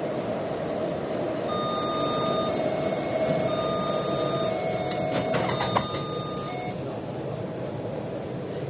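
Metro train running with a steady rumble, while an electronic chime of alternating beeping tones plays for about five seconds from about two seconds in. A brief clattering knock comes near six seconds, the loudest moment.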